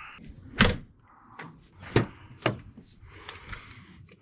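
A few sharp knocks and clunks, three of them loud, with faint rustling and smaller clicks between.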